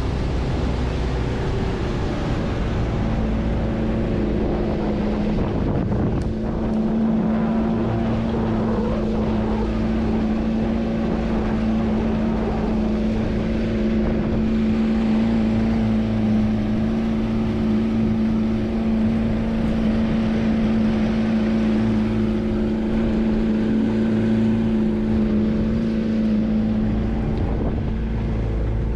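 Speedboat engine running at a steady cruising speed, a constant drone, with wind buffeting the microphone and water rushing past the hull.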